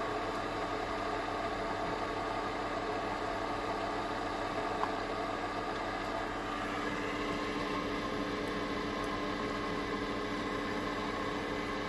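Keurig single-cup coffee maker brewing a large cup: its pump runs with a steady mechanical hum and vibration.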